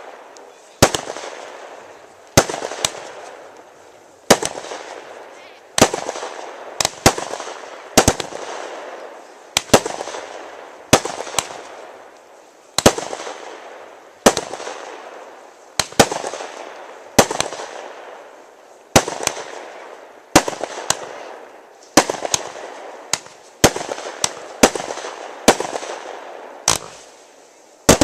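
Aerial fireworks shells bursting, a loud sharp bang every second or two, sometimes two in quick succession, each followed by a fading tail.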